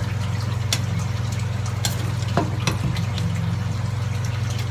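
Steady low electrical hum with a trickling, hissing water sound, typical of aquarium pumps and water flow running. There are a few light taps from a marker and acrylic pieces being handled.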